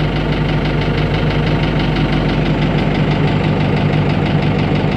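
Tractor engine running steadily at idle, heard from inside its cab.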